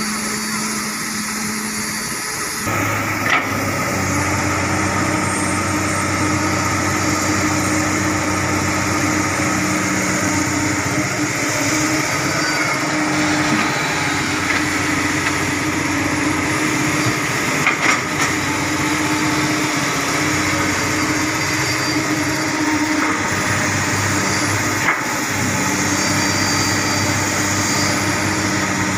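Komatsu hydraulic excavator's diesel engine running under load, its note stepping up about three seconds in and shifting as the boom and bucket work. A few sharp knocks are heard along the way.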